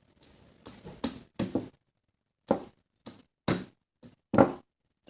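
Very sticky homemade slime being squeezed and pulled apart by hand, making a string of about eight short squelches at irregular intervals.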